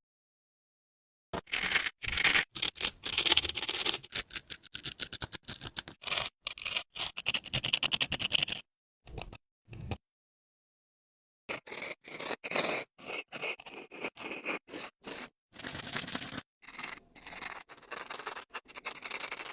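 Plastic being rustled and crinkled in irregular bursts, with a break of about three seconds near the middle.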